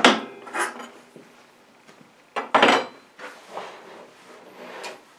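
Handling clatter with the table saw switched off: a sharp clunk as the saw's rip fence is locked in place, then maple boards knocking together as they are picked up, loudest about two and a half seconds in.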